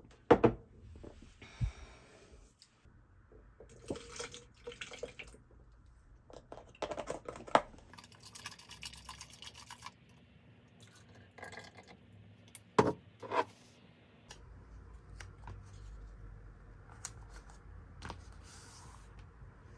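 A drinking glass and a plastic blender jar being handled on a kitchen counter: a few sharp knocks as they are set down, with liquid sloshing and dripping between them. A low steady hum sets in for the last few seconds.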